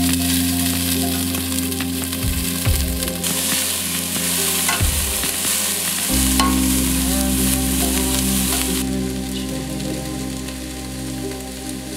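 Diced red onion sizzling in hot oil in a metal pot and being stirred with a spatula, with small scraping clicks. The sizzle is strongest through the middle and eases somewhat in the last few seconds.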